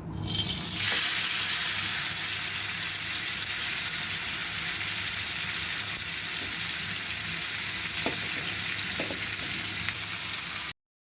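Marinated chicken pieces frying in hot oil in a kadai: a steady sizzling hiss that builds over the first second and cuts off abruptly near the end.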